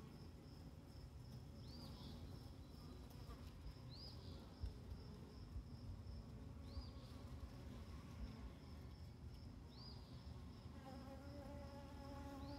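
Faint buzzing of a honeybee colony on an open brood frame, with a short high chirp about every two to three seconds. From about eleven seconds in, a steady pitched note joins the hum: a newly emerged virgin queen piping after the swarm, calling out her rival sisters.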